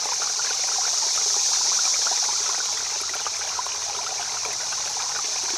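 Flowing stream water rushing and trickling steadily.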